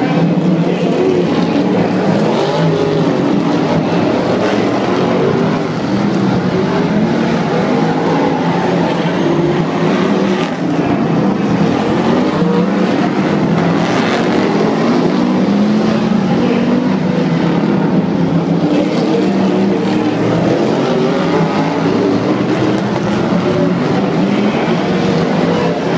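Several race car engines running loud as the cars lap a figure-8 track, their pitch rising and falling as they accelerate and ease off, heard from the grandstand.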